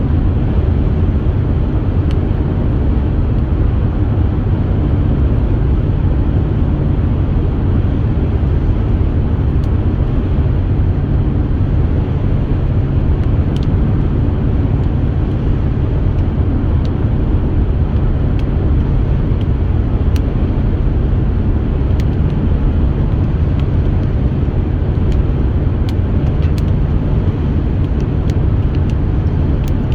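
Steady road and engine noise of a car at highway speed, heard from inside the cabin as an even low rumble.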